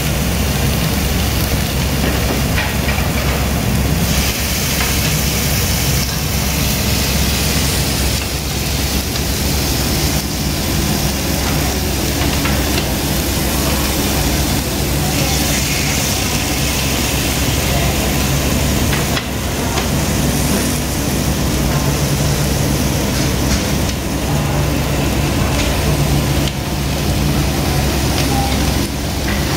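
Meat sizzling on a Korean barbecue grill: a steady, loud hiss over a low hum.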